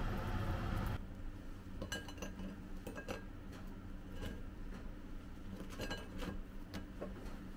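A steady hiss that cuts off about a second in, then toasted baguette slices set by hand into a ceramic baking dish: a scatter of light clinks and taps as the crusts knock against the dish.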